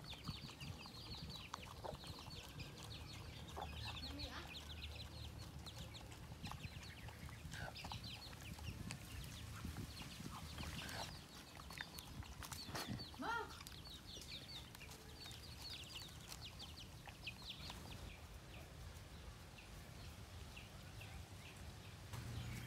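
Chickens clucking, with one louder, drawn-out call about thirteen seconds in, over a steady run of quick, high clicks.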